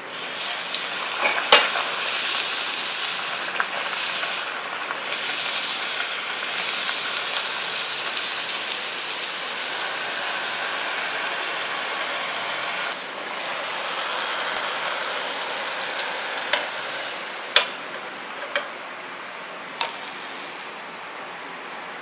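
Mullu murungai vada (drumstick-leaf and rice-flour patty) deep-frying in hot oil in a kadai: a loud sizzle starts as the patty goes in and surges and pulses for several seconds, then settles to a steady, quieter hiss. A sharp click comes about a second and a half in, and a few sharp taps of a metal ladle on the pan come near the end.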